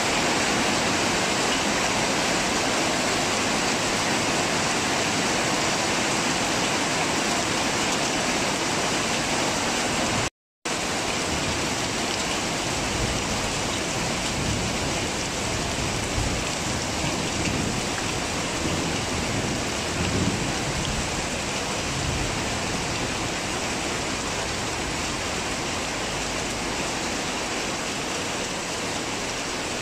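Heavy rain falling steadily in a thunderstorm, with low thunder rumbling between about thirteen and twenty-two seconds in. The sound drops out for a split second about ten seconds in.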